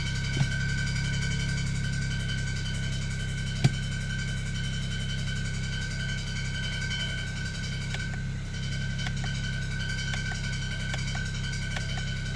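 2007 BMW E92 335i's twin-turbo inline-six running steadily, with a steady high whine over the engine hum. Two sharp clicks come in the first four seconds and lighter ticks later: the rattle from the transmission area, which a slightly bent flywheel turned out to cause.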